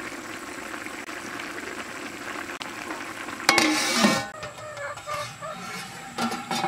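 A large aluminium cooking pot of vegetables bubbling at a boil, then about three and a half seconds in its aluminium lid is set on with a loud metallic clang that rings briefly.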